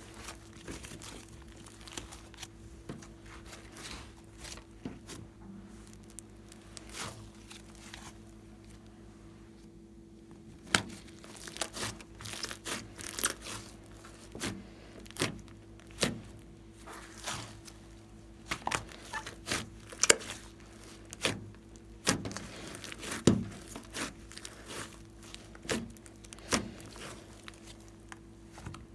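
Hands kneading, pressing and stretching a large batch of glossy slime, giving irregular sharp pops and crackles as trapped air bursts and the slime tears and folds. The pops are sparse and faint for about the first ten seconds, then come often and louder.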